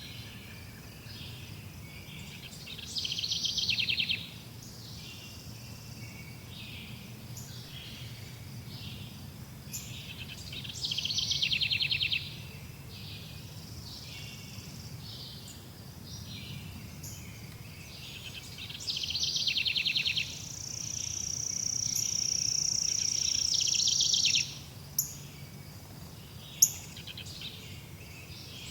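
Forest birdsong: many short chirps and calls, with a louder, fast trilled phrase about a second long repeating roughly every eight seconds. A steady high buzz holds for about four seconds in the second half, and two sharp clicks come near the end, over a steady low background rumble.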